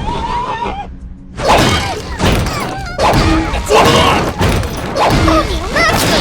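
A rapid string of cartoon sound effects: about half a dozen loud crashes and thuds with sliding, wobbling pitched sounds among them, over music.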